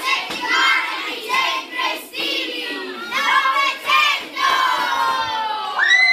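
A group of children shouting together in short chanted phrases, like a group cheer; one long high-pitched shout starts near the end.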